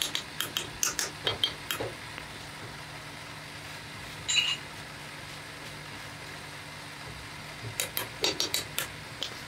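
Quick light taps and clicks of hands working a sand-casting mould around metal pattern pieces, in a run at the start and another near the end, over a steady low hum. A single short ringing clink about midway.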